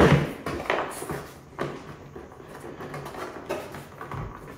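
Handling sounds: a power supply brick and its cable being pressed into a moulded pulp cardboard box insert. A knock as it starts, then scattered scrapes and rustles.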